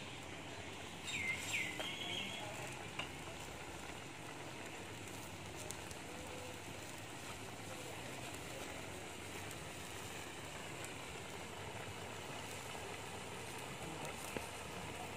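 Wok of spinach in a little water cooking over a wood fire, giving a steady sizzling hiss. A brief high chirp sounds about a second in.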